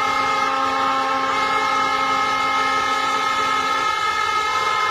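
Crowd of spectators blowing fans' horns together: several held notes at different pitches sounding at once in a loud, steady chorus over crowd noise.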